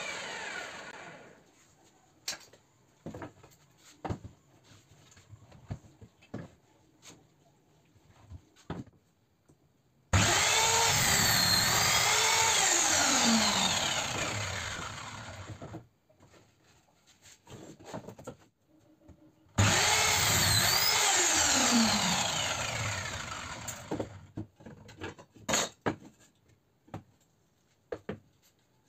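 Table saw cutting plywood twice. Each run starts abruptly and loud, then winds down with a falling pitch over a few seconds. Between the cuts, and after them, wood pieces are handled and set down with light knocks.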